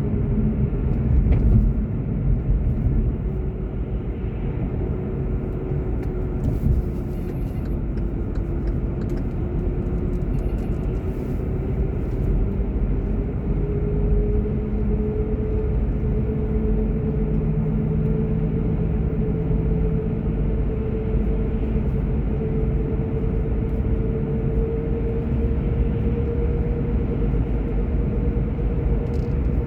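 Car driving: a steady road and engine rumble, with a whine that dips in pitch and then slowly rises.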